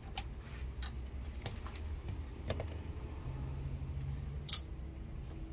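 Scattered light clicks and taps of hands handling a laptop and its cables, with one sharper metallic clatter about four and a half seconds in, over a low steady hum.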